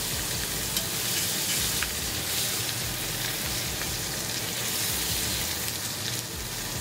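Sheepshead fillet sizzling steadily in hot olive oil and butter in a stainless steel frying pan just after being flipped, a constant hiss with a few small pops.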